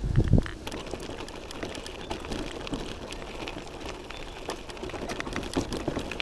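Bicycle rolling along a dirt and gravel trail, heard from a chest-mounted action camera: a steady crunch of tyres with scattered small clicks and rattles. There are a few heavier bumps in the first half second.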